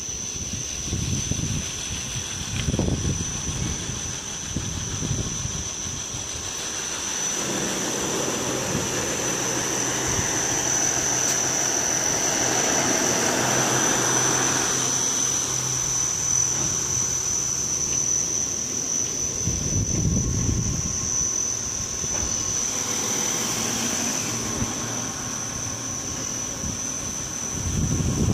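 DT1000 four-head wood brush sanding machine running: its abrasive brush rollers and drive motors spin with a steady whir and a steady high whine, louder through the middle stretch.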